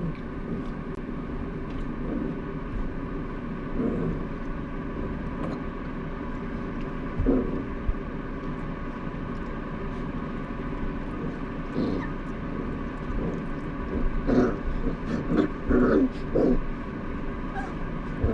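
Jindo puppies playing, making short puppy noises now and then, more often in the last few seconds, over a steady mechanical hum.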